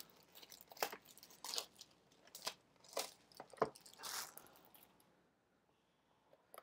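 Clear plastic shrink-wrap being torn and crumpled off a trading-card hobby box: a scatter of short, crinkly crackles that stops about four and a half seconds in.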